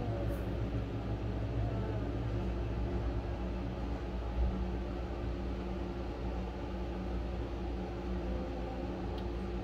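Steady low mechanical hum with a few even tones in it, unchanging throughout.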